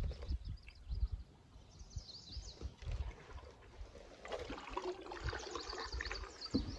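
Water trickling and splashing around a canoe being paddled, with low irregular thumps. Songbirds on the banks sing in quick, high chirping runs about two seconds in and again from just past the middle.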